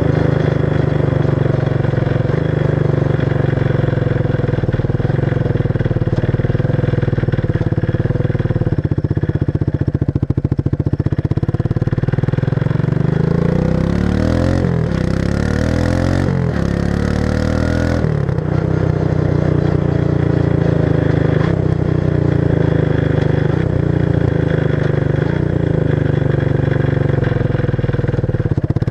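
1994 Suzuki King Quad 300's single-cylinder four-stroke engine running loud through its stock muffler with the baffles removed, revved up and down a few times about halfway through before settling back to a steady idle.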